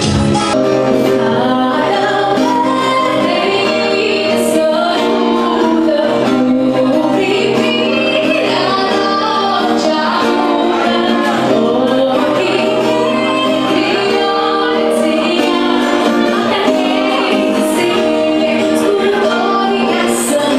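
A woman singing a song into a microphone over instrumental accompaniment, with a steady bass line under the melody.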